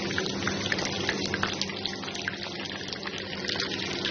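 Batter-coated sausages deep-frying in hot oil in a pan: a steady sizzle with many small pops and crackles.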